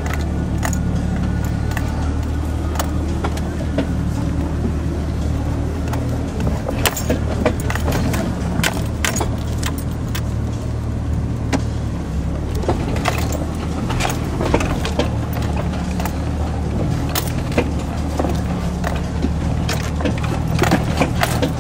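Jeep engine running steadily at low revs while crawling over rocks, heard from inside the cab, with frequent clicks, knocks and rattles as the vehicle jolts over the rocky trail.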